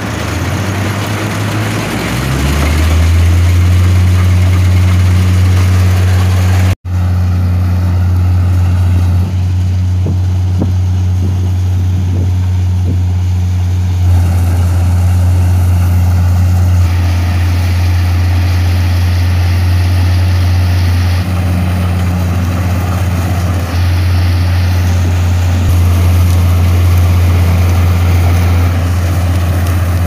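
Combine harvester running while cutting wheat: a loud, steady low drone from its engine and threshing machinery, swelling over the first few seconds, with a momentary dropout about seven seconds in.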